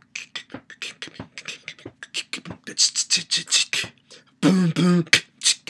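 A man beatboxing: a quick run of mouth clicks, pops and hissing strokes, then a longer voiced sound about four and a half seconds in.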